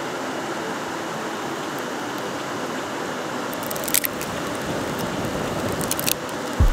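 Dry twigs catching in a small folding twig stove: a steady crackling rush, with a few sharp snaps about four and six seconds in.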